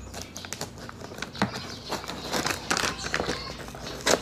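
Scissors snipping through the paper wrapping of a parcel, with the paper crinkling and rustling in irregular crackles; a louder crackle comes just before the end.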